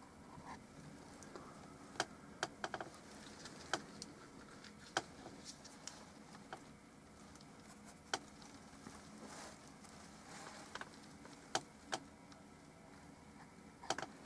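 Faint sounds of painting with a brush on canvas: quiet working noise with about ten irregular, sharp light clicks and taps, several bunched together about two seconds in.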